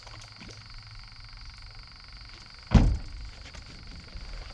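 Steady high-pitched chorus of frogs calling across the swamp, broken once, a little over halfway through, by a single loud thump.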